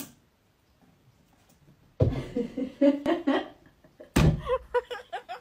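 The first two seconds are near silent. Then a woman's voice exclaims, without clear words, and a sharp knock comes about four seconds in.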